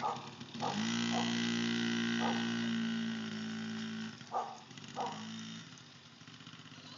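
A steady motor hum that stops about five and a half seconds in, with a dog barking about five times.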